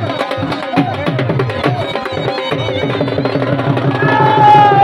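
Music with a fast, steady drum beat. About four seconds in, a long high note enters and slowly falls in pitch.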